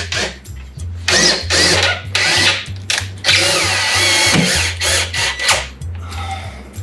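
Compact cordless driver running in several short bursts, driving screws that fix a metal drawer slide into a wooden kitchen cabinet, over background music.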